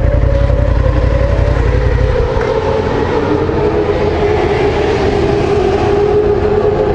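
Motorcycle engine running as the bike pulls away slowly, a steady drone with a slightly wavering pitch; the deep low rumble drops away about two seconds in.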